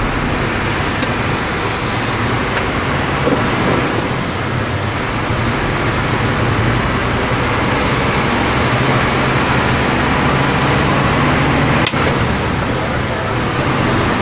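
Scania P310 truck's diesel engine running steadily under way, heard from inside the cab together with road and traffic noise, with a low steady engine hum and a single sharp click about twelve seconds in.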